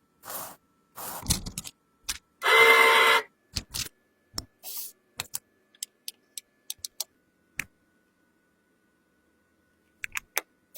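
Handling sounds from repairing makeup: a few short scraping strokes, a loud hissing burst about two and a half seconds in, then a scatter of small sharp clicks and taps on the compact and tools, and two more clicks near the end.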